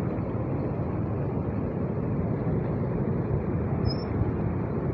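Floodwater flowing fast across a paved road: a steady, even rushing noise.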